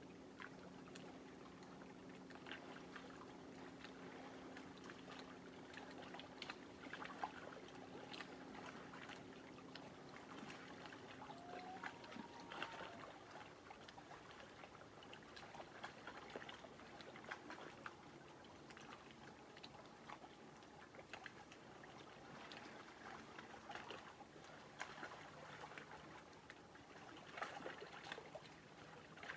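Faint, irregular lapping and small splashes of lake water at the shore. Under it, a low steady boat-motor drone stops about twelve seconds in, and a fainter low hum comes back near the end.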